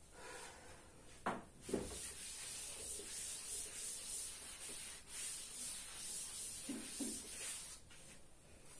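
Duster rubbing across a chalkboard, wiping it clean in a steady scraping hiss. Two sharp knocks come a little over a second in, and two softer ones near the end.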